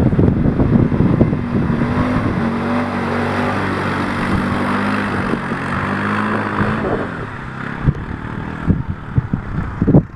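ATV engine running, its pitch rising and falling gently with the throttle for several seconds in the middle. Wind buffets the microphone at the start and again near the end, with a few sharp knocks.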